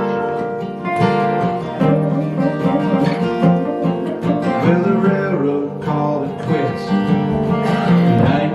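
Acoustic folk music without words: acoustic guitar strumming chords, with a bending melodic lead line over it from about two seconds in.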